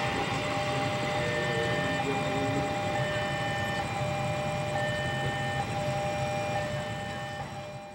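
Low rumble of a passenger train as its last coaches pass and it pulls away, under steady high electronic warning tones, fading out near the end.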